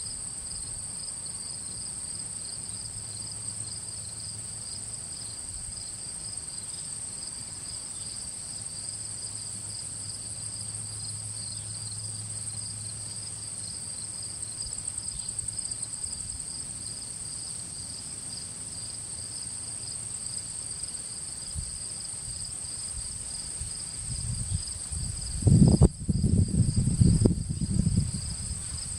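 Insects chirping steadily in two high, unbroken layers, one of them pulsing. Near the end come a few loud, low rumbles and knocks.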